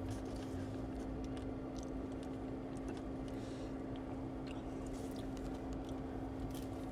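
Steady low hum inside a car cabin, with one constant drone and a few faint small clicks and rustles.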